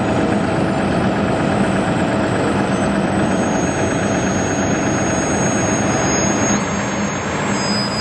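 Heavy diesel engines of a Mack dump truck and an asphalt paver running steadily at a loud, even level, with a steady low hum; the sound shifts slightly and drops a little about six and a half seconds in.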